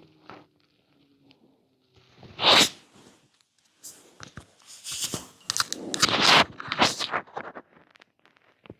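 Crackling, gurgling belly sounds picked up by a microphone pressed close against a stomach. There is a loud crackly burst about two and a half seconds in, then a longer crackling stretch in the second half.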